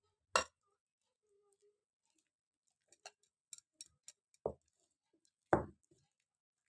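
A hand mixing thick pakoda batter in a glass bowl: bangles on the wrist clink against each other and the bowl's rim in sharp ticks, with a quick run of small clicks about three seconds in. Two heavier wet slaps of the hand in the batter come near the end.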